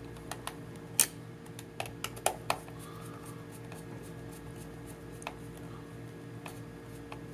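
Small screwdriver driving a screw into a plastic drone body: scattered light clicks and taps, the sharpest about a second in and a few more around two seconds in, over a steady faint hum.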